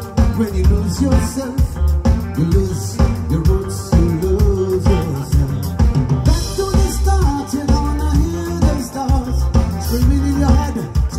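Live band performing: a male lead vocal sings over electric guitar, bass guitar, drum kit and keyboard, with a steady drum beat.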